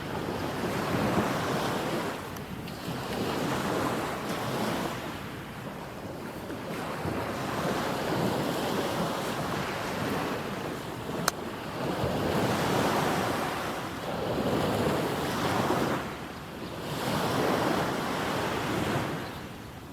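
Small waves breaking and washing up on a sandy beach, swelling and easing every few seconds. There is one short click about eleven seconds in.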